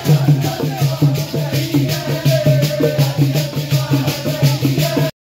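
Men singing a rasiya folk song together over a fast, even beat of jingling percussion with a low pulsing beat beneath it; the music cuts off suddenly near the end.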